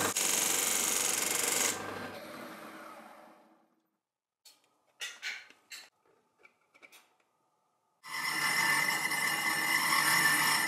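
Metal lathe cutting a spinning metal disc with a carbide insert tool, then running down and fading out over about two seconds. A few short, sharp scrapes follow as the disc edge is worked by hand. About eight seconds in, the lathe runs loud again while a block is held against the spinning disc.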